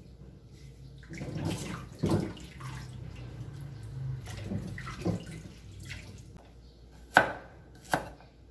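Water splashing in a steel kitchen sink as turmeric root is rinsed and handled, then two sharp chops of a cleaver through turmeric onto a wooden chopping board near the end, under a second apart.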